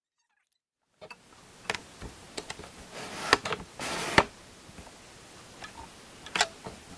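Handling noise: a few light clicks and knocks and a short rustle about four seconds in, after a second of silence.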